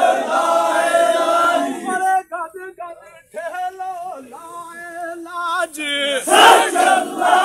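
Men's group work chant while hauling a heavy log: the crowd chants together, then a single voice sings a line alone for a few seconds, and the whole group comes back in loudly near the end, like a call and response.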